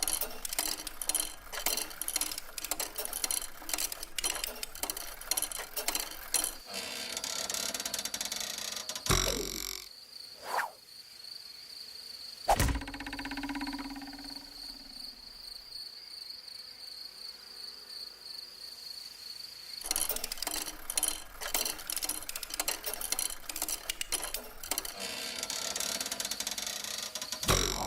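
Cartoon insect sound effects: dense, rapid clicking and chirring over a high steady whine. The clicking drops away in the middle for a couple of quick sliding whistles and one sharp hit about twelve seconds in, then returns.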